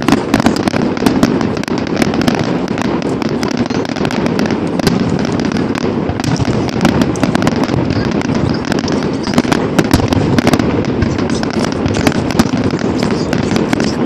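Fireworks going off in a rapid, continuous barrage: many sharp bangs and crackles over a steady rumble, starting suddenly and keeping up throughout.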